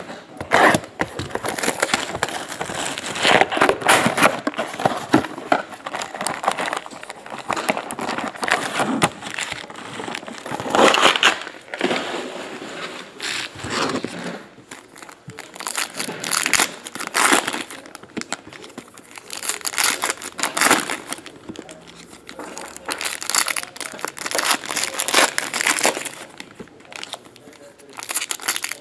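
Plastic shrink wrap and foil trading-card pack wrappers crinkling and tearing as a box is unwrapped and the packs are handled and ripped open. The rustling comes in irregular bursts with short lulls between.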